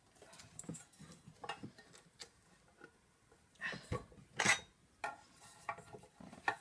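Metal tool clinking and scraping against a stuck part of a vacuum cleaner's motor unit as it is pried at, in irregular sharp clicks, loudest for a few strikes about halfway through.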